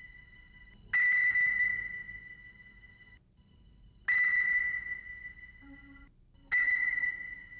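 Soundtrack ping: a high ringing tone struck three times, each starting sharply and fading at one steady pitch over about two seconds.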